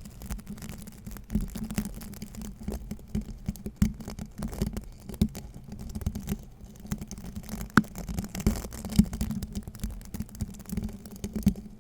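Brush bristles scraped in quick, irregular strokes close to the microphone, a dense crackly rustle with a few sharper clicks.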